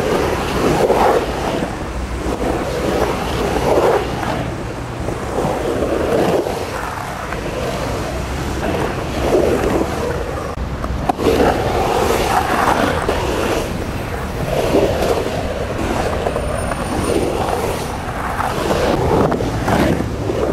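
Skateboard wheels rolling on the concrete of a bowl, the rolling rumble swelling and fading every second or two as the rider carves up and down the walls.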